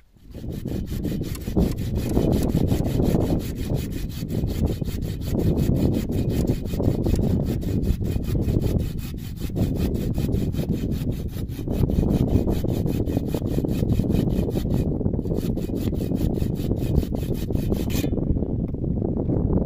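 Wood being sawn in quick, even strokes, with a short break about three quarters of the way through.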